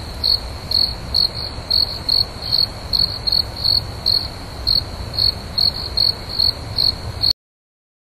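Cricket chirping: short, high-pitched chirps repeating about two to three times a second, slightly unevenly, over a low rumble. The chirping cuts off suddenly about seven seconds in.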